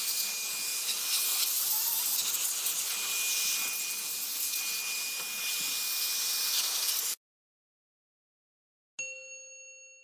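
Handheld electric air duster blowing out the inside of a desktop PC case: a loud rush of air with a steady high motor whine over it, cutting off suddenly about seven seconds in. After a brief silence, a ringing intro chime sounds near the end and fades.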